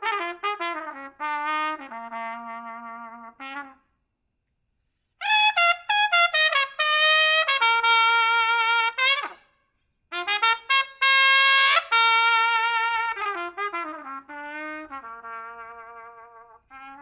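Solo trumpet playing a melody in phrases: a falling line, a short pause, then a louder phrase climbing to a high held note about 10 to 12 seconds in, and a softer falling line near the end.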